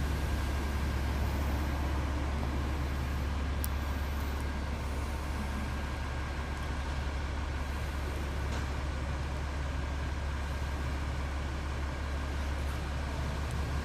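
Railway overhead-line maintenance car idling: a steady, unchanging low engine drone with two faint clicks, about four seconds and eight and a half seconds in.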